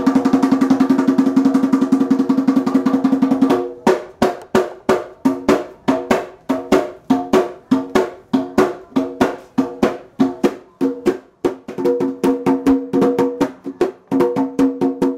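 Hand drum played in a fast, even roll that breaks off about three and a half seconds in into a syncopated rhythm of separate strokes. Ringing pitched tones sound beneath the strokes throughout.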